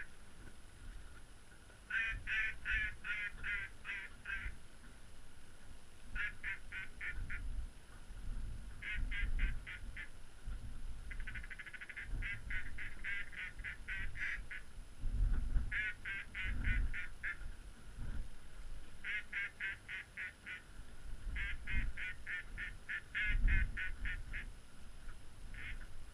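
Duck quacking in rapid runs of about six to ten notes, a run every second or two, with wind rumbling on the microphone.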